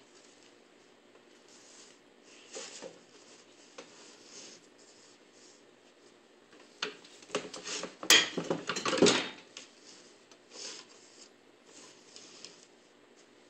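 Fabric swatches and hands being moved about on the board of a Chandler 12-inch manual swatch cutter as the stack is set up for cutting: soft scrapes and taps, then a burst of clattering and sliding about seven to nine seconds in.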